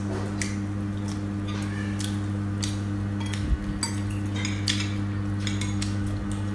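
Metal spoons and forks clinking and scraping against ceramic rice bowls, in irregular clicks, over a steady low hum. One low thump a little past halfway.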